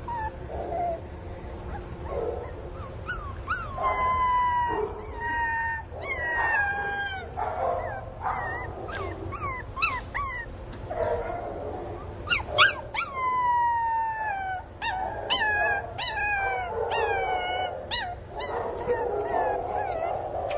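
Pinscher puppy whining and crying over and over: drawn-out, falling whimpers mixed with short sharp yips. This is the distress crying of a puppy missing its mother.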